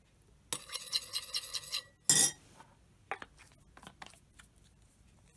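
A metal spoon clinking against a mixing bowl in a quick run of ringing taps, then one loud clank about two seconds in. A few light clicks follow as a small bottle is capped.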